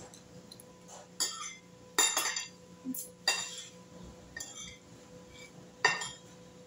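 A metal spoon and fork clink against a ceramic soup bowl in several sharp, separate clinks. The loudest come about two seconds in and shortly before the end.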